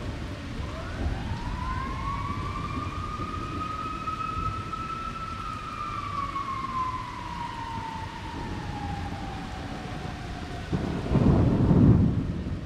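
Thunderstorm with steady rain and a siren wailing, its pitch rising slowly then falling away over several seconds. About eleven seconds in, a loud low rumble of thunder rolls in and fades.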